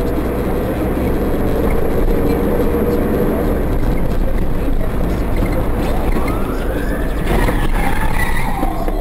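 Steady road and engine noise heard from inside a moving car. About six seconds in, a siren starts a slow wail, rising and then falling. About a second later a short crash rings out as two vehicles collide ahead.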